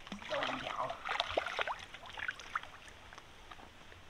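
Water splashing in short irregular bursts for the first two to three seconds, then dying down: a hooked fish thrashing at the pond's surface as the rod is lifted.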